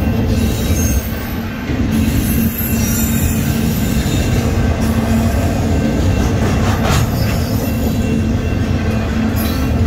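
Double-stack intermodal container train rolling past at speed, the cars' steel wheels giving a steady, loud rumble on the rails.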